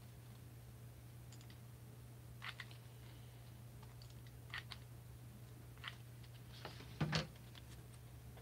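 Faint, scattered small clicks and rustles of hands working a hot-glue gun and a foam craft piece, over a steady low hum. A louder knock comes about seven seconds in, as the piece is set against the hard tabletop.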